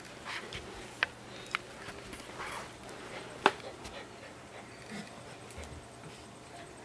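Rough collies walking about on carpet, one pacing restlessly from low blood sugar: soft footfalls and shuffling, with three sharp clicks about one, one and a half and three and a half seconds in, the last the loudest.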